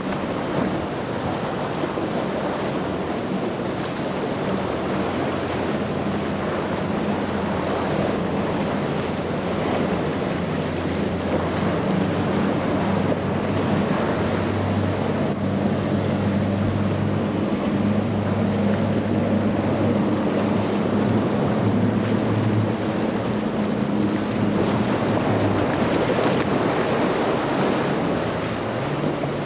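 Multiple outboard motors on fast center-console boats running at speed, a steady low drone, over the rush of water and spray off the hulls. Wind buffets the microphone throughout.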